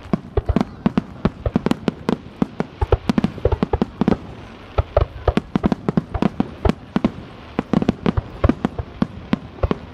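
Fireworks display: a rapid barrage of aerial shells bursting, several sharp bangs a second at an uneven pace over a continuous rumble.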